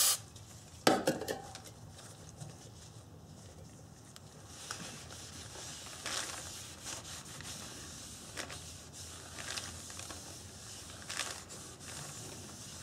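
A shop rag rubbing over the face of a new brake rotor in short, irregular strokes, wiping off brake cleaner and the rotor's rust-proof coating. A sharp knock comes about a second in.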